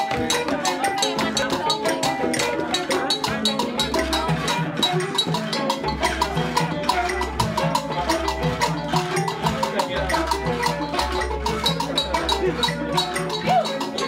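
Ghanaian ensemble of struck bamboo tubes and hand-held wooden and gourd percussion playing together in a fast, dense rhythm. A deep bass line joins in about four seconds in.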